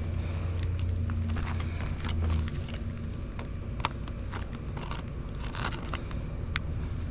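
Asphalt roof shingles being pried and scraped with a tool to find the edge of a sealed shingle: scattered sharp clicks and short scrapes. A low steady hum stops about two and a half seconds in.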